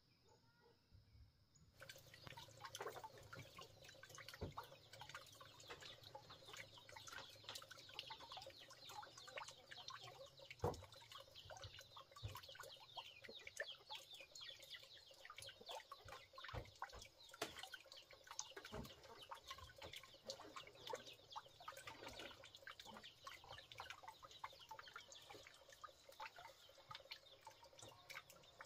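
Chickens and chicks calling: a dense run of many short chirps and clucks that starts abruptly about two seconds in.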